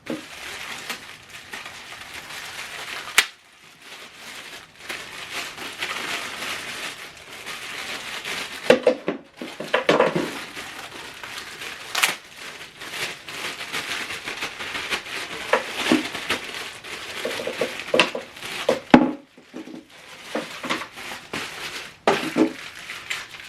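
Plastic packaging crinkling and rustling in the hands as small accessories are unwrapped, with scattered sharp clicks and knocks.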